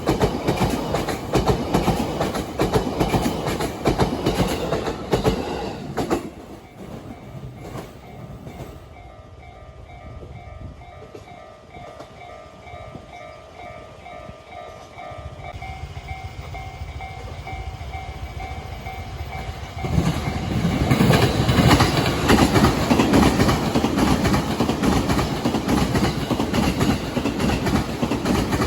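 Trains passing over rail joints with a loud, rapid clatter of wheels. The clatter dies down about six seconds in, leaving a level crossing's warning bell ringing steadily. A second train comes through with a loud clatter about twenty seconds in.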